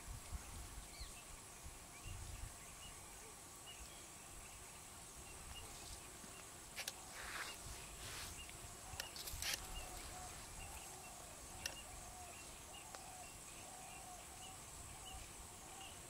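Faint outdoor natural ambience. Small animal calls repeat about once a second, and a few brief hissing noise bursts come in the middle.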